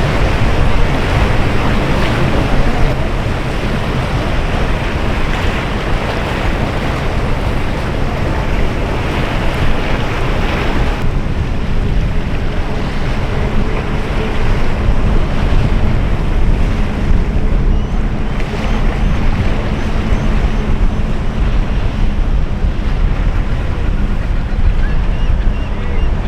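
Wind buffeting the microphone over breaking surf and the steady drone of boat engines in rough inlet water. The high hiss drops away suddenly about eleven seconds in.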